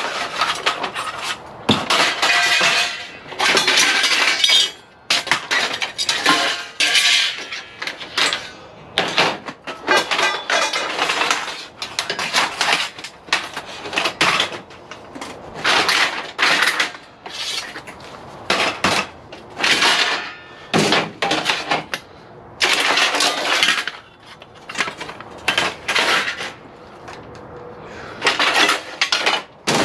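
Lengths of extruded 6063 aluminum scrap clanking and rattling against each other as they are shifted by hand, in irregular bursts of clatter with short pauses between.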